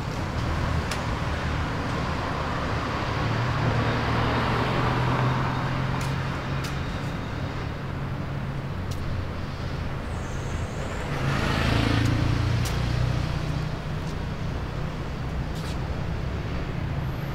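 City street traffic: cars running past on the road, swelling about four seconds in and again near twelve seconds, with a few faint clicks.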